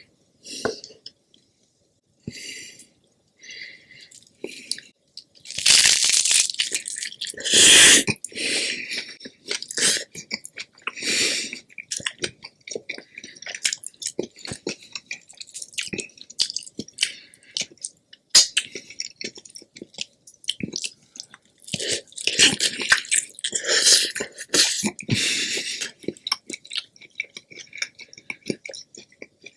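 Close-miked eating: chewing and biting in irregular bursts, with louder crunchy stretches about a fifth of the way in and again past the middle.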